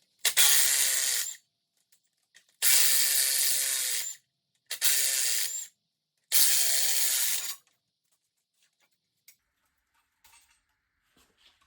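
Cordless power tool, a drill or driver, whirring in four short bursts of about a second each, each winding down at the end, typical of running bolts out during an engine teardown.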